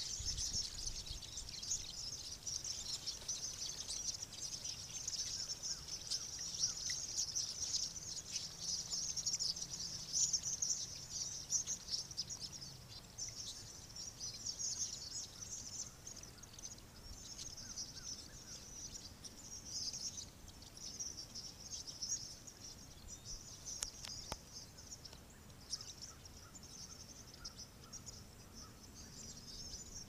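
A huge flock of small birds calling all at once, a dense, continuous high chatter that eases somewhat over the second half.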